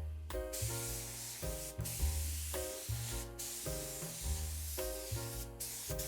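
Background music with a steady beat, over the steady hiss of a paint spray gun laying down base coat, which breaks off briefly a few times.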